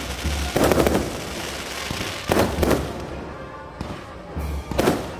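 Aerial fireworks going off: a string of sharp bangs roughly a second apart, the loudest near the start, with crackling and hiss between them.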